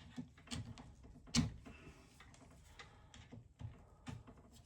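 Metal parts and tools being handled during the teardown of a mini milling machine's spindle head: several light knocks and clicks, the loudest about a second and a half in.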